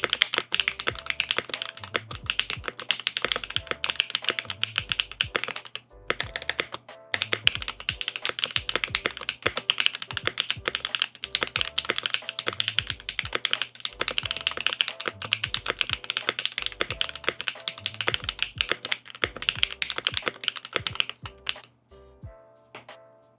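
Rapid typing on a Cannon Keys Chimera 65 R2 mechanical keyboard fitted with Kailh BCP switches, GMK doubleshot keycaps and an aluminium plate with no foam. The keystrokes come thick and fast, with a brief pause about six seconds in, and stop about 21 seconds in. Background music runs underneath and carries on alone at the end.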